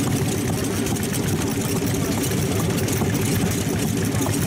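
Vintage Sato-type hot-bulb stationary engine running steadily on light oil, a dense, even stream of firing pulses with no change in speed.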